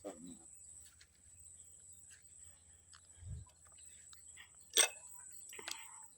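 Scattered light clicks and small knocks from tools and parts while the horn is being taken off a Yamaha Jupiter Z motorcycle. The loudest is a sharp click nearly five seconds in, followed by a smaller click and a brief scraping rustle near the end.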